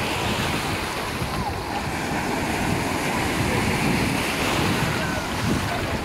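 Small Black Sea waves breaking and washing up the sand at the water's edge in a steady surf wash, with wind buffeting the microphone. Faint shouts and voices of bathers sound in the distance.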